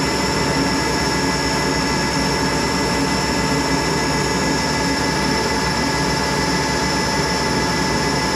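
Monarch 10EE toolroom lathe running steadily at top spindle speed on its electronic variable-speed drive: a dense mechanical hum with several steady high tones over it, unchanging throughout.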